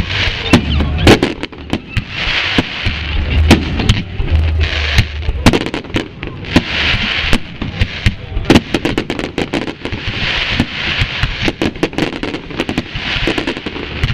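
A fireworks salute, with aerial shells launching and bursting in a dense, uneven run of sharp bangs, and deep booms mostly in the first few seconds.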